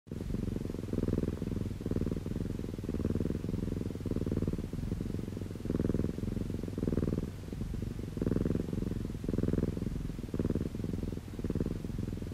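Calico cat purring affectionately, very close to the microphone: a continuous low purr that swells and dips about once a second with each breath in and out.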